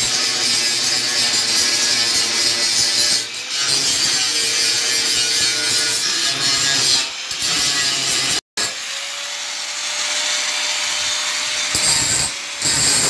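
Handheld angle grinder grinding the weld joints of a steel flat-bar window grille smooth: a loud, harsh, continuous grind that dips briefly three times as the disc comes off the metal.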